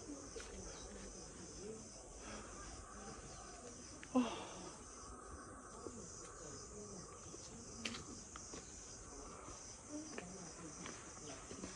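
Faint, steady chorus of insects, a continuous high-pitched chirring, with a few light clicks and one brief louder sound about four seconds in.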